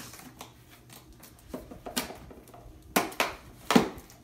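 A small cardboard box being opened by hand: a handful of short, sharp rips and knocks of cardboard as the flap is pulled open, coming closer together and loudest near the end.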